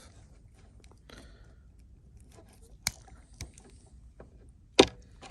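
Outer jacket of a slim Cat6A cable being cut and stripped: faint scraping and small clicks, a sharp click about three seconds in, and a louder snap near the end.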